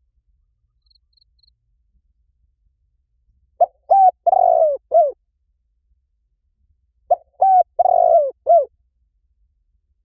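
Spotted dove cooing: two phrases of four notes each, a few seconds apart, the third note of each phrase the longest.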